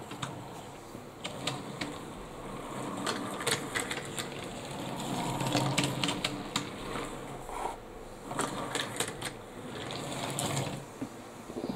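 Wooden toy train cars pushed by hand along a wooden track, the wheels rolling with a rattle and a string of sharp clicks and clacks. The rattle is loudest about halfway through.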